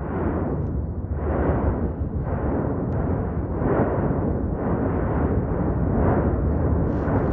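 Erupting vent of the Cumbre Vieja volcano on La Palma, a deep continuous rumble that swells in repeated pulses about once every second or so.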